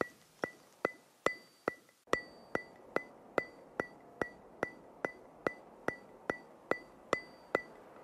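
Steady percussive ticking, about two and a half sharp clicks a second, each with a brief bright ring, in a gap where the background music's melody drops out.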